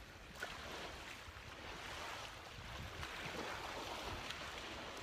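Small waves washing on a beach, with wind rumbling on the microphone.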